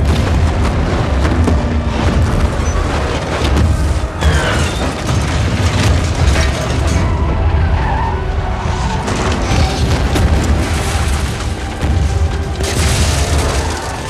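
Loud action-film sound mix of car engines and tyre skids, with booming impacts and a deep rumble over a music score. A tyre squeal stands out about four seconds in.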